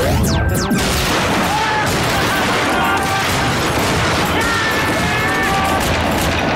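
Sustained gunfire from two revolvers and a shotgun, the shots running together without a break, mixed over a music score.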